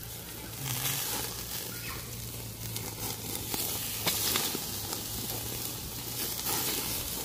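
Meat sizzling on the wire grate of a small round grill over an open fire, a steady hiss with scattered crackles.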